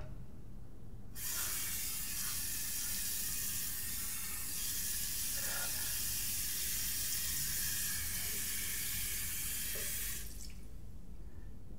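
Bathroom sink tap running, water pouring steadily into the basin; it starts abruptly about a second in and stops abruptly near the end.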